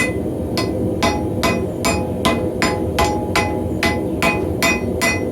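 Hand hammer striking hot mild steel on an anvil in a steady rhythm of about two and a half blows a second, each blow ringing briefly, as the bar is drawn out longer and thinner. A steady low rush runs underneath.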